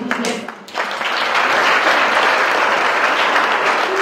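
Audience applauding, starting just under a second in and holding steady.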